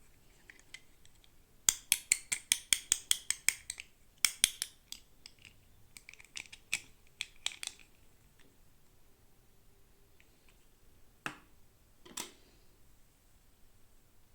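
Plastic toy packaging being handled during an unboxing: a quick run of sharp clicks, about five a second, then a few short bursts of clicks and taps, and two single clicks near the end.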